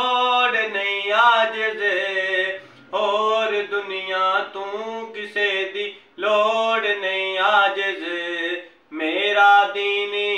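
A man singing a Punjabi naat unaccompanied, in long, ornamented held notes. There are four phrases, with a short breath between them about every three seconds.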